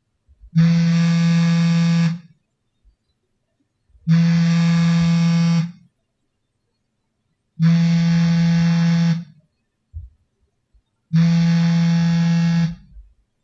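Samsung smartphone's vibration motor buzzing for an incoming call. There are four pulses of about a second and a half each, spaced about three and a half seconds apart, with a steady low hum and a rattling edge.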